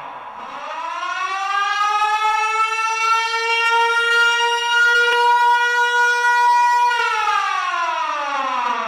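Outdoor warning siren wailing: its pitch rises over the first few seconds, holds steady for about four seconds, then winds down near the end.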